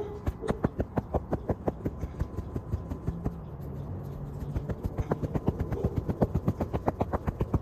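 A dirt-clogged vacuum filter being knocked over and over to shake the dust out, in quick regular knocks, about five or six a second, that ease off in the middle and pick up again after about four and a half seconds.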